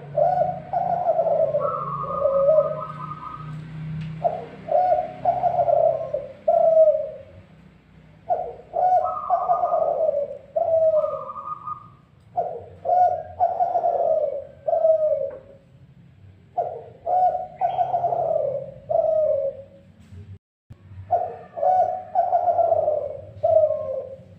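Spotted dove (dekuku) cooing: a phrase of several notes, repeated about every four seconds.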